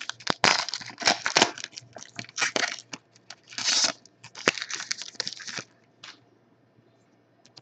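Foil trading-card pack wrapper being torn open and crinkled by hand, in irregular rustling bursts with a few sharp clicks, stopping about five and a half seconds in.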